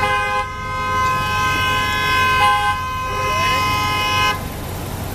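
A vehicle horn held in one long, unbroken honk that cuts off about four seconds in, from traffic stopped behind the cars blocking the road.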